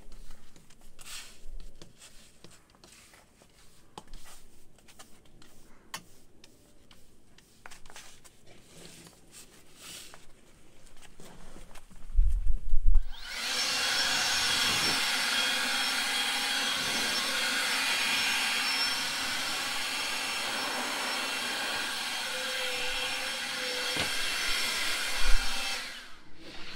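An electric motor starts up and runs at a steady, even pitch for about thirteen seconds, then cuts off abruptly. Before it starts there are only faint clicks and handling knocks.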